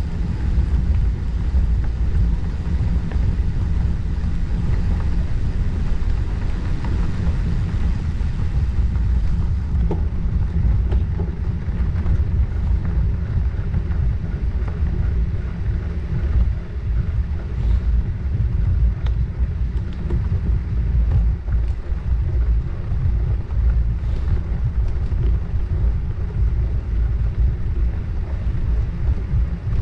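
Wind rushing over the microphone of a camera mounted on a moving bicycle: a steady, loud low rumble, with a few faint clicks.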